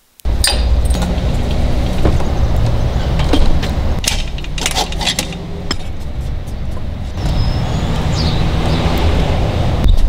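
Steady low rumble with scattered sharp knocks and metallic clanks from tools working on motorcycles while their wheels are taken off.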